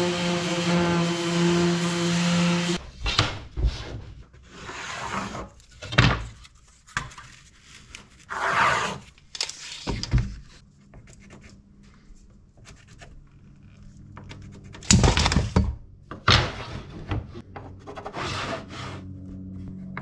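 Compact handheld trim router running steadily while easing the edge of a mahogany board, cutting off about three seconds in. Then wooden boards and hand tools being handled on a workbench: knocks, rubs and scrapes, the loudest a clatter about fifteen seconds in.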